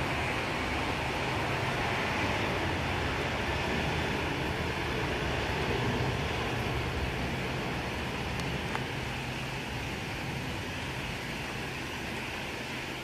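Jet engines of a Boeing 737 airliner on its landing roll: a steady rushing roar with a low hum underneath, slowly fading over the second half as the aircraft slows and moves away down the runway.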